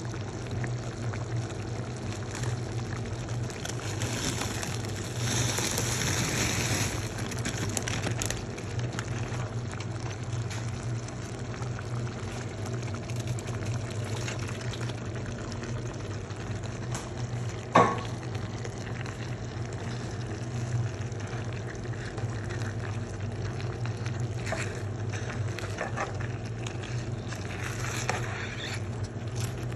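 Shrimp, corn and mushroom sauce simmering and bubbling in a frying pan over a steady low hum, with one sharp knock about two-thirds of the way through and a spatula stirring the pan near the end.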